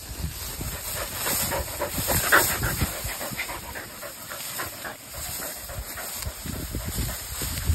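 A whippet and a small white dog panting and brushing through tall grass as they play-fight, with irregular rustling.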